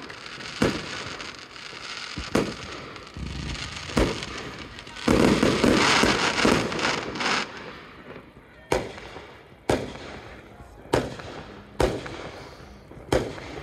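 Fireworks display: aerial shells bursting with sharp bangs, a dense crackling stretch in the middle, then single bangs about a second apart near the end.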